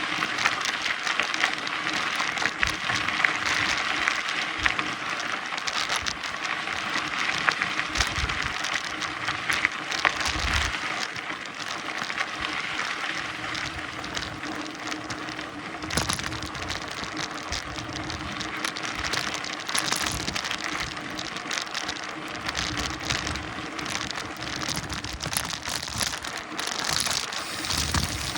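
Mountain bike riding over a dirt trail: a steady gritty hiss from the tyres, with frequent knocks and rattles from the bike over bumps.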